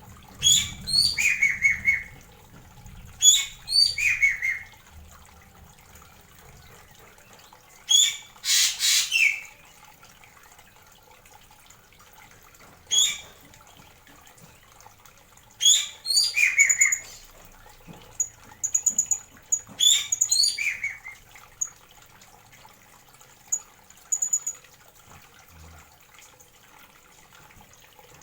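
Blue-crowned hanging parrot giving short, sharp high-pitched calls that drop in pitch, in bursts every few seconds, with fainter thin peeps between them. A brief noisy rustle about eight seconds in is the loudest sound.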